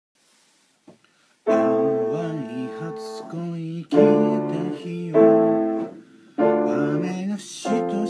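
Piano played in block chords, a new chord struck about every second and a quarter, starting after a second and a half of near silence.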